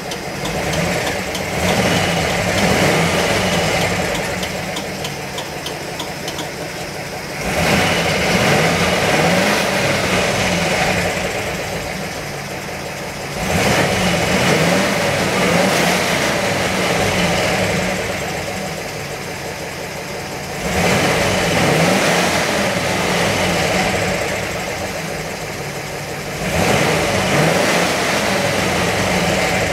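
Engine of a PAZ-32053 bus, a carburetted petrol V8, running at idle and revved five times at roughly six-second intervals. Each rev rises suddenly and then eases back toward idle over a few seconds.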